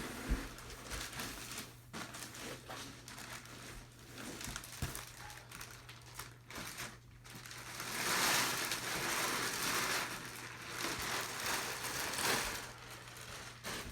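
Packaging being handled: rustling and crinkling with scattered clicks and knocks, heaviest about two-thirds of the way in and again near the end, over a faint steady low hum.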